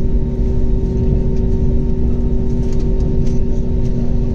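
Airbus A321neo jet aircraft noise: a steady low rumble with a constant two-tone hum and faint scattered ticks, the engine pitch holding level rather than spooling up.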